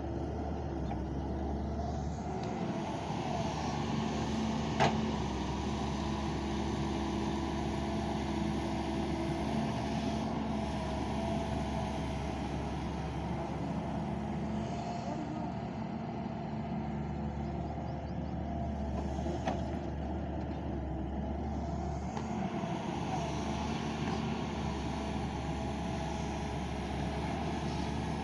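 Doosan excavator's diesel engine running steadily under load as it digs and loads mud into a tipper truck, with a sharp clank about five seconds in and a lighter one later.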